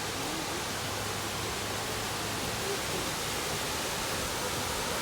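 Cunningham Falls waterfall rushing with a steady, even noise of falling water.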